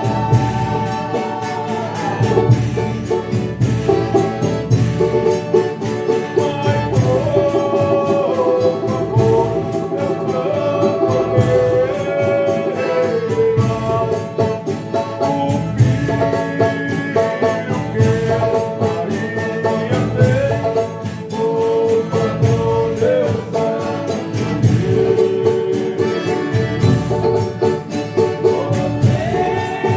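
Folia de Reis troupe singing a sung thanksgiving for a meal: voices in chorus over accompanying instruments and tambourine, with a regular low beat.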